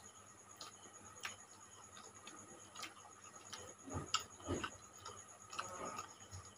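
Eating sounds of people taking rice and curry by hand: scattered small wet clicks of lips smacking and chewing, with a few louder, lower smacks about four seconds in.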